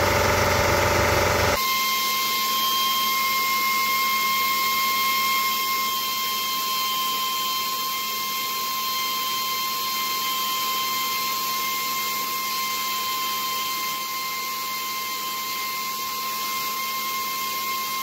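Belt file sander running against an air-cooled VW intake valve spun in a drill press, grinding a backcut into the valve: a steady high whine over hiss. The whine starts abruptly about a second and a half in, replacing a lower, fuller machine hum.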